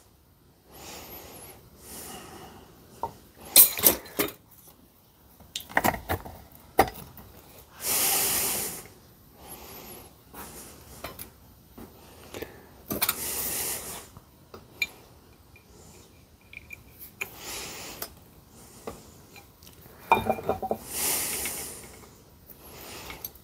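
Scattered metal clinks and rattles from the steel chains and bottle jack being shifted and realigned by hand, with three hissy breaths of about a second each between them.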